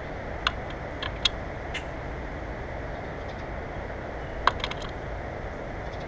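A common grackle arriving at a platform bird feeder: a handful of short, sharp clicks and taps, the loudest cluster a little over four seconds in, over a steady low background noise.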